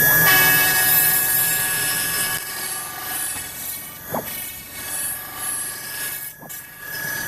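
CNC router spindle running at high speed with a steady whine as a 1/2-inch carbide end mill surfaces UHMW plastic, taking a light skim cut; the sound starts abruptly and dips briefly twice.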